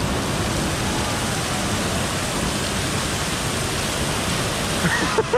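Steady rush of water running down a water slide.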